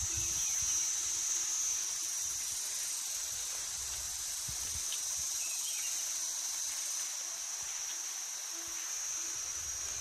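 Steady, high-pitched drone of insects, unbroken, over a faint even hiss.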